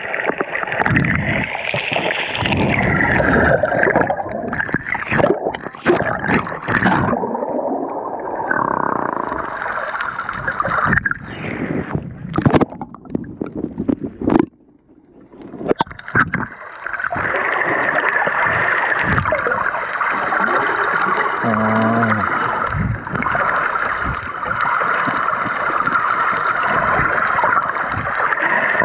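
Water sloshing and rushing around a camera held just under the sea surface by a swimming snorkeler. Sharp splashes and knocks come through the middle, with a brief hush about halfway, and then a steady muffled rush of water.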